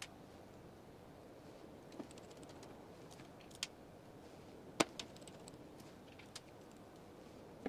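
Scattered small clicks and taps as tiny screws and a precision screwdriver are handled against a smartphone's frame and a wooden desk, about five sharp ticks, the loudest about five seconds in.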